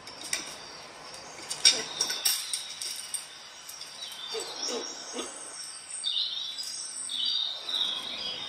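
Birdsong from a CatTV bird video played through an Echo Show's speaker: repeated short, high chirps, busiest in the second half. A few sharp clicks come about two seconds in.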